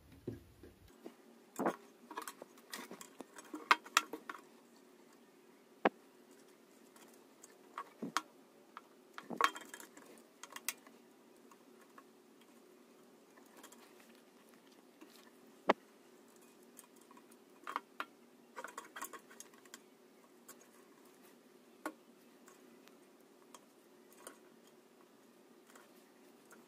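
Sparse light clicks and taps of hand-soldering work on a thin aluminium LED channel: the soldering iron, wire and small LED boards touching the metal, in small clusters every few seconds with a couple of sharper knocks. Under them is a faint steady hum.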